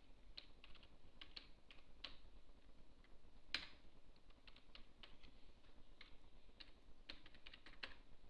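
Faint typing on a computer keyboard: irregular keystrokes in short runs, with one louder key strike about three and a half seconds in.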